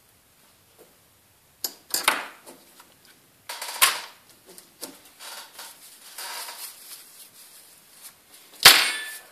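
Small tools and parts being set down on a work desk: a few sharp knocks and clicks, the loudest near the end, with paper tissue rustling between them.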